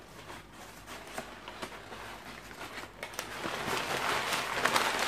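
Crumpled packing paper rustling and crinkling as it is pulled out of a cardboard box, with scattered small crackles, growing louder in the second half.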